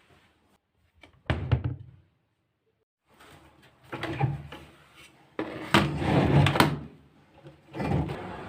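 Household handling sounds: knocks and clatter like kitchen cabinets being opened and shut and things being moved about, in several bursts, with a sharp cluster of knocks about a second in.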